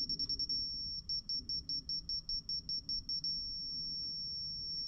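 Bosch laser level beeping: a rapid high-pitched beep about six times a second, with a brief pause, that becomes one steady unbroken tone about three seconds in. On a laser receiver the steady tone marks the on-grade reading after the above/below beeps.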